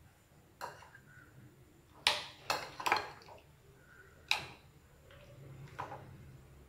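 A spoon clinking and knocking against a glass bowl while stirring chicken pieces in buttermilk: a handful of sharp clinks, with a quick run of three about two seconds in.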